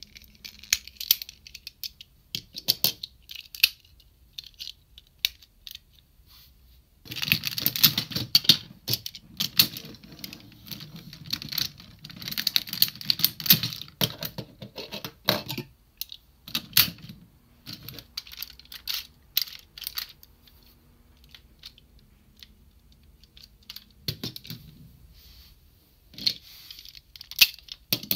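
Hard plastic parts of a DX Diesel-Oh transforming robot toy being handled, snapped together and pulled apart: sharp clicks and rattling, with a long stretch of dense clatter in the middle.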